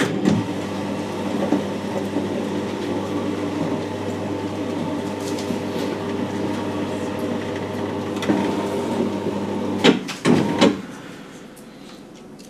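Motor-driven sliding whiteboard panels moving: an electric drive hums steadily for about ten seconds, then stops, and two or three knocks follow as the boards come to rest.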